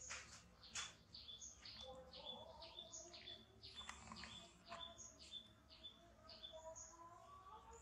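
Faint bird chirping: short high chirps repeating about twice a second, some sliding down in pitch.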